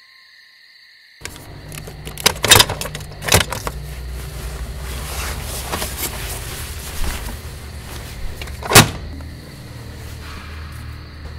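Sharp metal knocks and clanks from a Vespa scooter being handled, over a low steady hum starting about a second in. There are a few knocks two to three seconds in and a louder one near the end.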